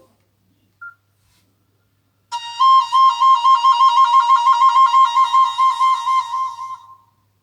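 Nokia C5-00 ringtone: a flute-like tone warbling rapidly between two pitches in an even trill, starting about two seconds in and lasting about four and a half seconds, preceded by a short beep just under a second in.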